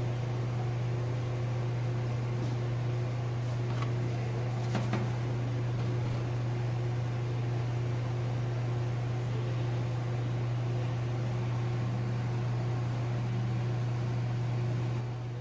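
Steady low hum of a motor-driven machine running, with a couple of faint clicks about four and five seconds in.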